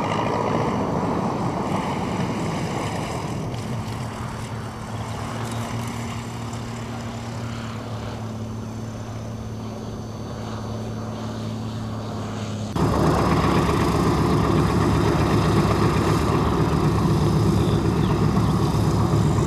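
Twin-engine light aircraft's piston engines running as it lands and rolls out on grass, with a steady low hum. About two-thirds of the way through, a cut to the louder, rhythmic running of a Yak-3UPW's Allison V12 engine on the ground.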